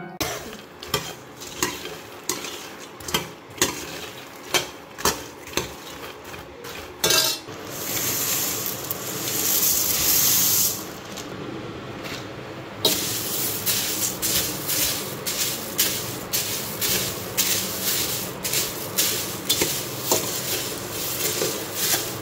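A metal spatula scrapes and clinks against a steel kadhai as cornflakes are stirred and roasted in a little ghee, the flakes rustling with a light sizzle. The strokes come about once a second at first, with a stretch of steady hiss in the middle, then faster, steadier stirring through the second half.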